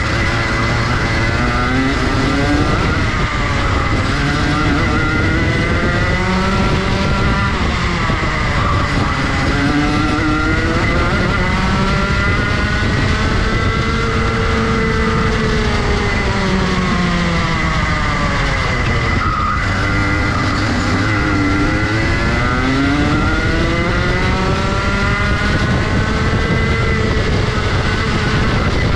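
Rotax Max Junior 125cc two-stroke kart engine at racing speed, its pitch climbing steadily along the straights and dropping sharply as it slows for corners, about four times, over steady wind rush.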